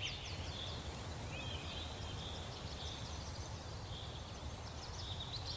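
Rainforest ambience: faint bird calls, with quick series of short falling chirps near the start and again near the end, over a low steady rumble.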